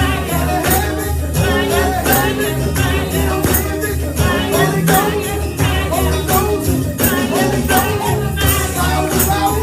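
Church praise music: voices singing over a band with a steady bass line and a beat, with a tambourine jingling on the beat about twice a second.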